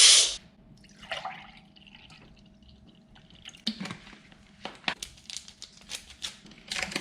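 Quiet kitchen handling noises over a faint steady hum: a brief rustle about a second in, then from about halfway a scatter of small clicks and taps from utensils and containers being handled.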